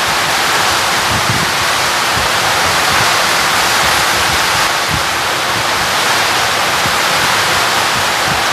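Heavy rain falling hard: a loud, steady rushing hiss with no letup.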